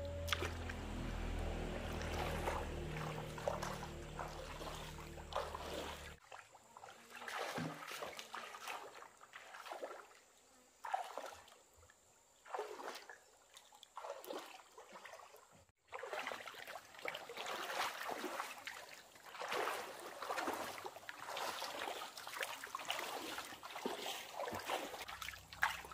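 Pond water splashing and sloshing in irregular bursts, with a low steady hum under it for the first few seconds.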